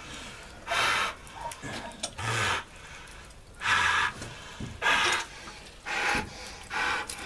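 Police dog breathing hard: loud, noisy huffs, six of them, about one a second.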